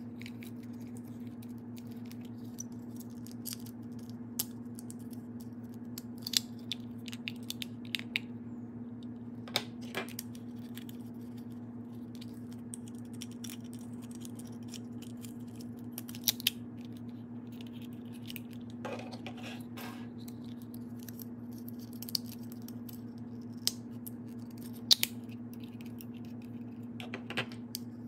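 Hard plastic transforming Happy Meal toys clicking and snapping as their hinged parts are folded and rotated, with a few louder snaps and short plastic scrapes, over a steady low hum.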